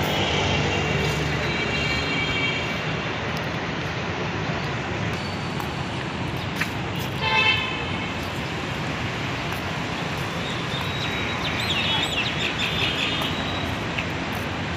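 Steady road traffic noise with vehicle horns honking several times: a long one at the start, a short one about seven seconds in, and a few more near the end.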